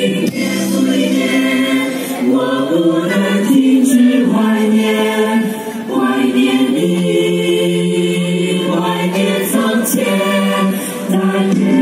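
Large mixed youth choir singing in sustained harmony, its held chords shifting every second or two.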